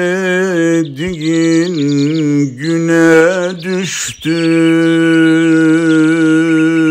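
A solo voice singing a wordless, ornamented melody. The line wavers through quick turns and breaks briefly a few times, then settles into one long held note from about four seconds in.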